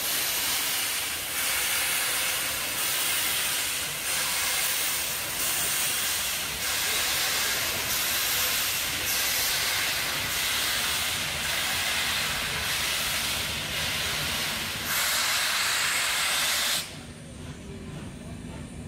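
Baldwin-built SNCF 141 R Mikado steam locomotive hissing steam in long rhythmic pulses, each lasting about a second and a quarter, as it pulls its train slowly away. About 17 s in the hiss cuts off suddenly, leaving the quieter rumble of coaches rolling past.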